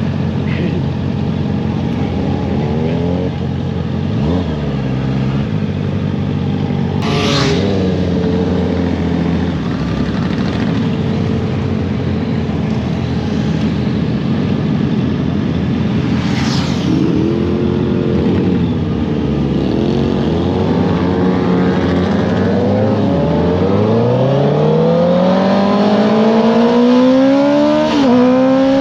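Honda CBR650R inline-four engine through an Akrapovič exhaust, rising and falling in revs through a run of corners. Near the end it pulls hard, its pitch climbing steadily.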